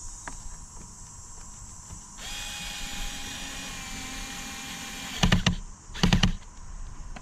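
Power drill/driver running steadily for about three seconds while driving a screw into the trolling motor's sleeve cover, then two short, louder bursts of the drill near the end. Crickets chirp steadily in the background.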